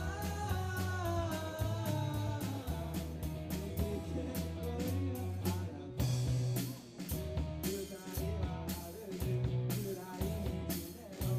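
Live band music: guitar over a steady beat. A long held note bends over the first couple of seconds, then the song carries on in an instrumental passage.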